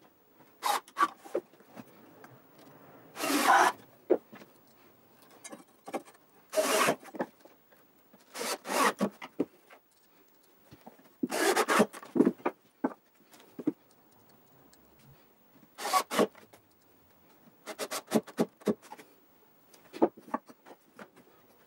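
Short scraping and rubbing sounds on plywood, a burst every second or few with quiet in between, as glued panels are handled and fitted together.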